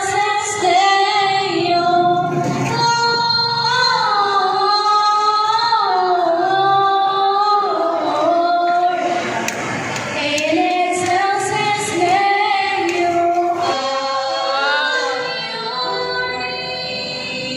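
A group of girls singing a melody in unison into handheld microphones, with long held notes.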